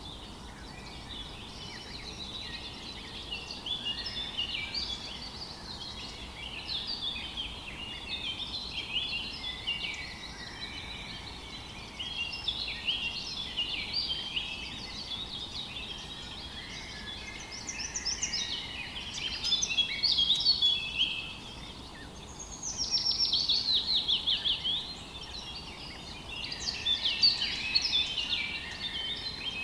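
Several songbirds singing in a continuous, overlapping chorus, with a fast run of repeated notes about two-thirds of the way through, over a faint steady rush of river water.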